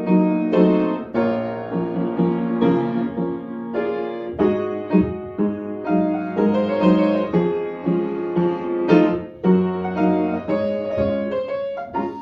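Yamaha upright piano playing a solo piece with both hands: chords and a melody line, notes struck every half second or so and left to ring.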